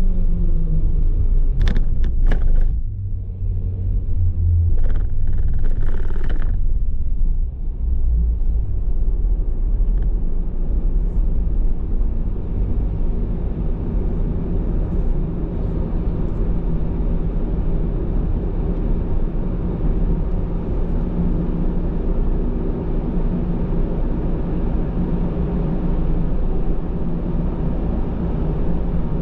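A car's engine and road noise heard from inside the cabin while driving, a steady low rumble. A few short knocks and rattles come in the first several seconds.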